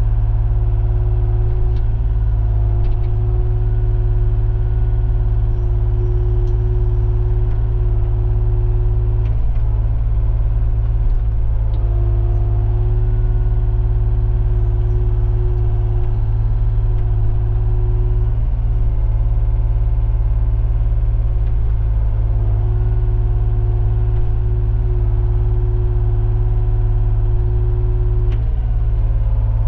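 John Deere 35G mini excavator's diesel engine running steadily while the boom, stick, bucket and swing are worked together. A higher steady whine from the machine comes in and drops out three times, each stretch lasting several seconds, as the controls are moved.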